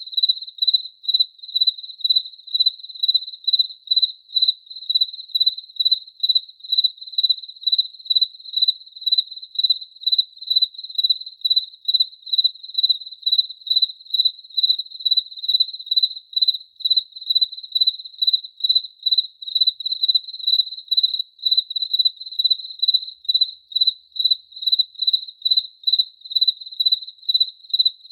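A cricket chirping in a steady, even rhythm of about two chirps a second, all on one high pitch.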